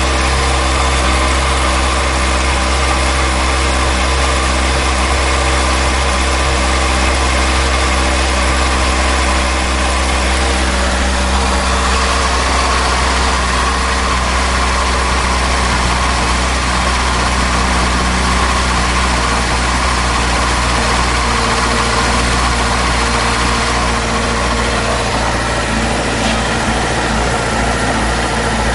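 Honda CBR sport bike engine idling steadily, with an even low rumble and no revving.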